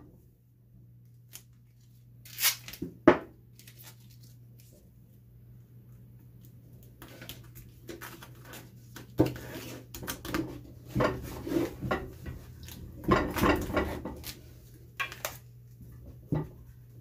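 Duct tape being handled and pressed onto an axe head: two short sharp rips or knocks about two and three seconds in, then several seconds of crinkling and rubbing as the tape is smoothed down, over a low steady hum.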